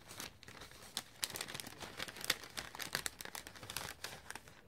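Crinkling and crackling of a packet of paper die-cut foliage handled in the hands, a dense run of small irregular crackles that stops near the end.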